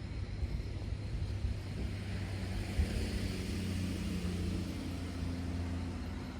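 Distant engine hum that swells and then fades about halfway through, over a steady low rumble.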